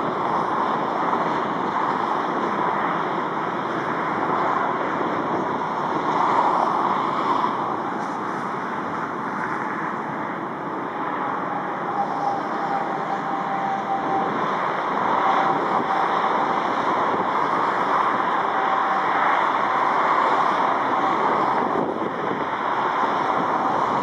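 Boeing 777F freighter's GE90 turbofan engines giving a steady jet roar as the aircraft comes in to land and touches down, with a faint whine in the second half. Wind buffets the microphone throughout.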